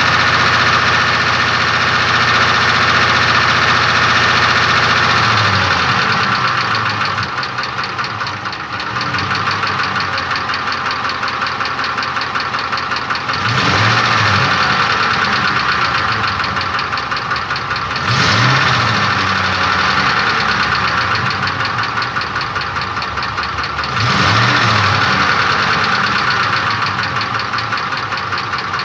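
Ford 5.4-litre Triton 3-valve V8 running with a rhythmic knock that has newly appeared, the cause not yet known. It idles and is briefly revved several times.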